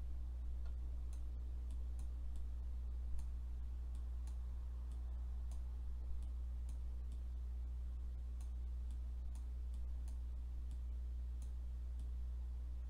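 Steady low electrical hum with faint, light clicks roughly twice a second, from hand-writing characters on screen with a computer pen or mouse.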